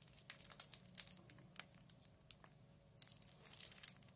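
Faint crinkling and crackling of a plastic piping bag being squeezed as choux pastry dough is piped onto parchment paper, in scattered small crackles that grow busier near the end.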